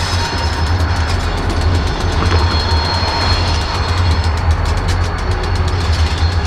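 A set of six-axle diesel freight locomotives running by, with a steady low engine rumble and the noise of wheels on the rails.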